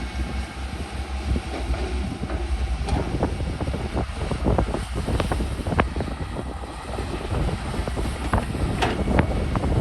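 Caterpillar excavator's diesel engine running steadily with a low pulsing rumble, wind buffeting the microphone. From about three seconds in, irregular sharp clicks and knocks sound over it.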